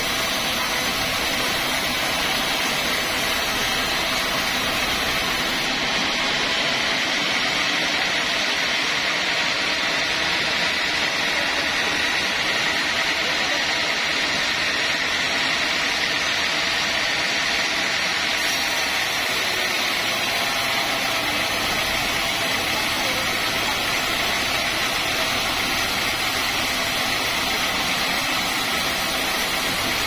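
Band sawmill running as its blade cuts lengthwise through a large teak log: a steady, unbroken mechanical hiss and whine that holds the same level throughout.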